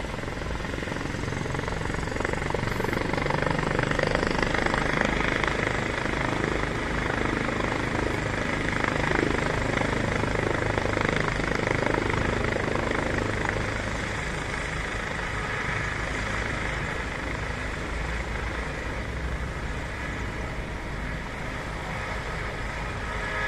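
Airbus H145 twin-turbine air-ambulance helicopter running, a steady rotor and turbine noise that is a little louder in the first half and eases slightly later on.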